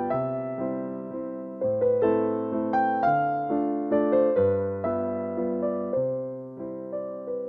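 Background piano music: a melody of single notes, each struck and fading, over lower notes that change every second or two.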